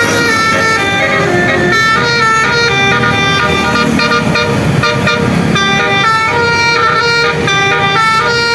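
Bus's telolet basuri musical air horn playing a tune, its notes changing in quick steps, over the low rumble of the engine.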